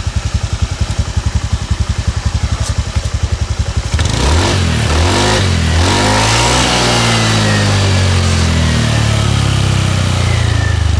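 Honda Beat FI scooter's single-cylinder engine idling, then revved about four seconds in and held at higher revs, the pitch wavering. No rattle when revved free: the scooter's rattle comes only when pulling away under load, which mechanics commonly blame on a CVT bearing.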